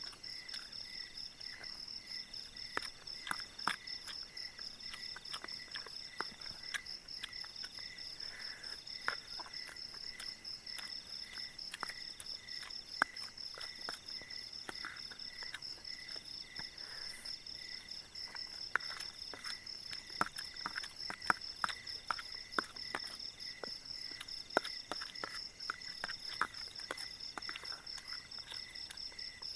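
A steady night chorus of crickets and other insects trilling, with one insect calling on and off in repeated phrases, over scattered small clicks and scrapes of a spoon against a plastic plate.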